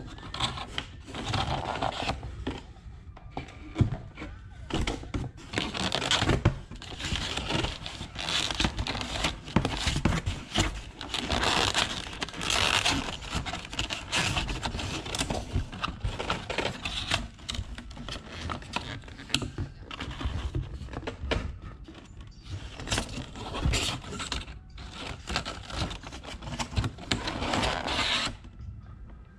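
Plastic takeaway containers with clear plastic lids being handled and shifted inside a cardboard box: crinkling plastic and scraping against cardboard in uneven bursts, with small clicks.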